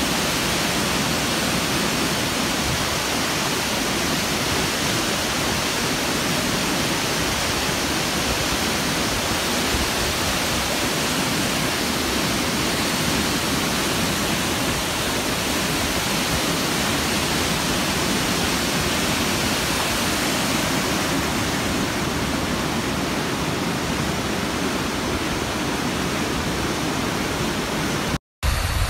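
Muddy flash-flood water pouring over rock ledges as a waterfall, a steady rushing roar; it cuts out for a moment just before the end.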